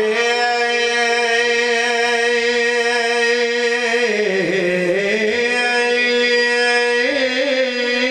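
A man chanting melodic Quranic recitation in long, drawn-out held notes, the pitch sinking about halfway through and rising again a few seconds later.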